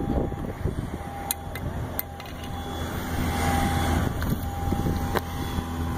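Steady low drone of an aircraft engine running at the airport, swelling slightly about halfway through, with a few sharp clicks.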